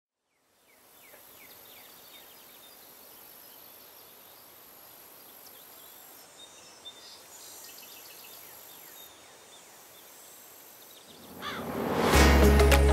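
Faint outdoor ambience: a steady hiss with scattered short bird chirps. Near the end a rising whoosh swells into loud music with a deep bass.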